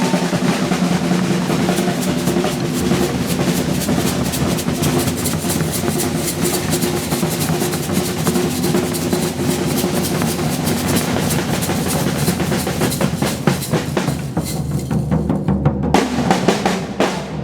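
Brazilian percussion ensemble drumming together: a dense, fast rhythm of many drum strokes over a steady low drone. A little after halfway through the high-pitched strokes drop out for about two seconds before coming back near the end.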